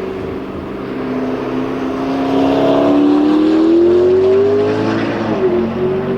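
McLaren P1's twin-turbo V8 hybrid engine accelerating hard, its note rising and getting louder, with a quick upshift about five seconds in.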